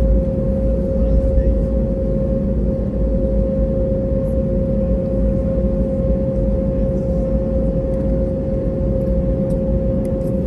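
Steady cabin noise aboard an Airbus A320neo on the ground: a low rumble with a constant whine running through it, from the engines at idle and the cabin air system.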